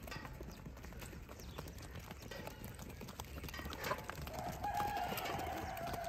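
Beetal goats' hooves clicking and scuffing on dry ground as the herd walks in. About four seconds in, a single long animal call starts, holds its pitch and then falls away near the end.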